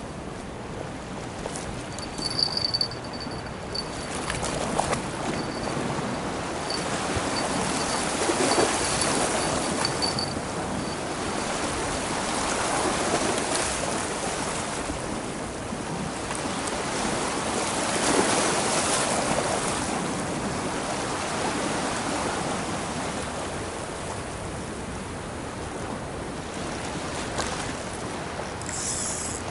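Small sea waves washing against a concrete sea wall, rising and falling in slow surges, with a few light clicks early on and a faint high-pitched pulsing tone through the first third.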